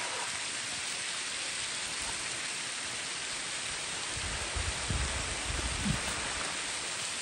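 Mountain waterfall cascading down a rock face: a steady, even rush of falling water, with a few low rumbles about midway.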